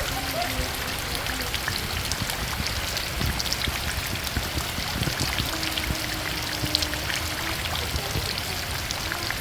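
Steady rain falling, with many small drops and splashes ticking through a constant hiss of water.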